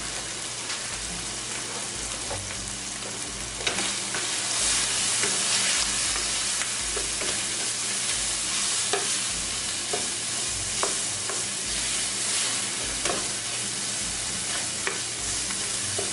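Diced chicken sizzling in oil in a nonstick skillet, stirred and scraped around with a wooden spatula. The sizzle steps up a few seconds in, and short knocks of the spatula against the pan recur throughout.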